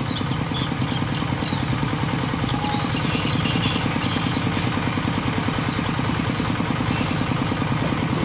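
Single-cylinder diesel engine of a two-wheel hand tractor running steadily with an even, rapid low pulse as it plows a flooded rice field.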